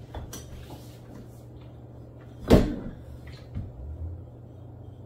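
A few light handling clicks and one sharp knock about two and a half seconds in, over a low steady hum.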